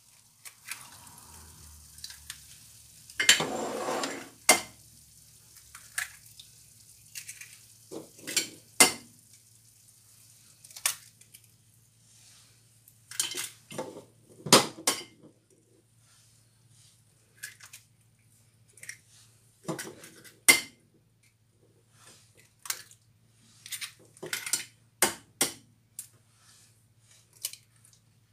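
Eggs being cracked one after another into a pan of simmering vegetables: about twenty sharp knocks and clicks of shell and crockery, scattered irregularly. A longer rustling noise about three seconds in.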